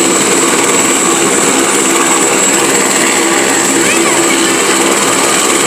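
Helicopter running close by: a steady roar of turbine and rotor with a constant high turbine whine, under faint crowd voices.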